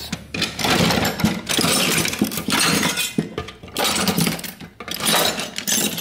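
Loose metal tools and parts clattering and clinking as they are rummaged through in a pile, in several waves of rattling.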